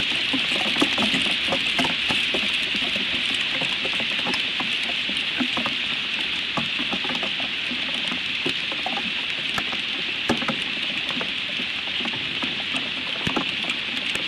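Hail falling on a twig nest and the surrounding branches: a dense, irregular patter of small sharp ticks over a steady hiss.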